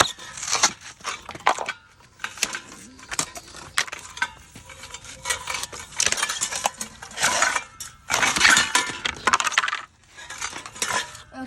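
Clattering and clinking of hard broken ceiling fan pieces being handled, in about five separate bursts of rattling knocks.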